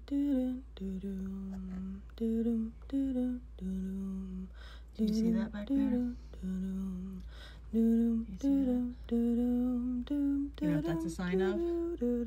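A single voice humming a slow tune: one held note after another with short breaks, the pitch wavering about eleven seconds in.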